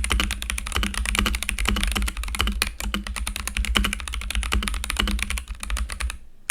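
Fast, continuous typing on a NuPhy Halo 65 mechanical keyboard with Gazzew Boba U4T tactile switches (black, 68 g): a dense stream of keystrokes that stops about six seconds in.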